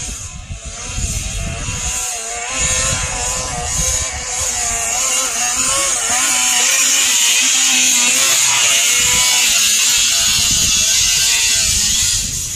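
Snowmobile engine running hard while towing a loaded freight sled, its pitch wavering up and down with the throttle over rough snow. It grows louder as the machine approaches, then holds steady as it passes close by.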